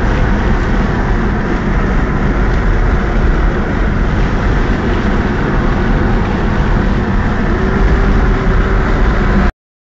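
Steady engine and road noise inside the cabin of a moving car, with a strong low rumble. It cuts off suddenly near the end.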